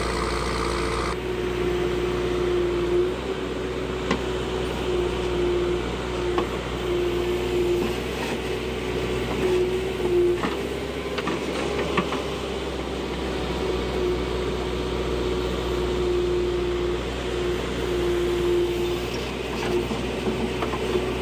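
Backhoe loader's diesel engine running under load, with a steady whine from the hydraulics as the digging arm works. A few sharp knocks stand out, about 4, 10 and 12 seconds in.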